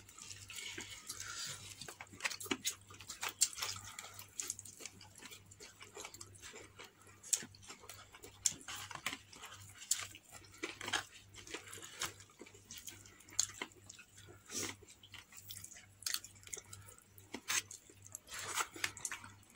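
Close-up eating sounds: crispy fried chicken being torn apart by hand and chewed, with irregular crunchy clicks and crackles.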